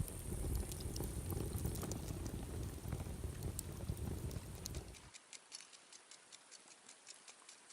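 Night insects trilling steadily over a low rumble. About five seconds in the sound cuts abruptly to a quieter stretch of faint scattered ticks.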